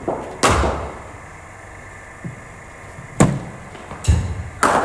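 A cricket ball being delivered by a bowling machine in an indoor net: four sharp knocks of the ball, echoing in the hall, the loudest about three seconds in.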